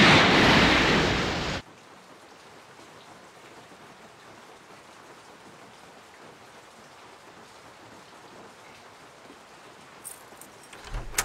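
Heavy storm rain: a loud rush of downpour that cuts off suddenly after about a second and a half, then a soft, steady patter of rain heard from indoors. A few faint clicks come near the end.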